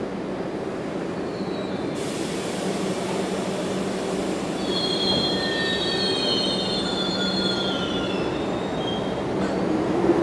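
New York City Subway 3 train of stainless-steel R62 cars moving through the station with a steady rumble. A hiss starts suddenly about two seconds in, and the wheels squeal in several high, slightly falling tones through the middle of the passage.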